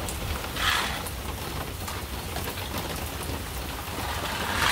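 Steady rain falling, an even hiss, with two brief louder swells of hiss, one about half a second in and one near the end.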